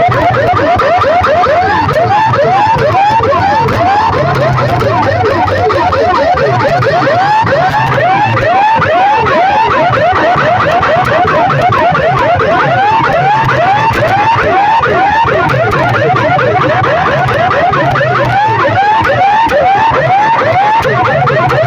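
Loud sound-system speakers playing a competition track of rapid siren-like chirps, about three sweeps a second, over a pulsing bass.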